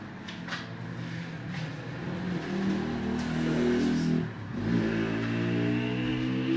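A motor vehicle's engine speeding up, its pitch climbing, dropping sharply about four seconds in, then climbing again and holding steady.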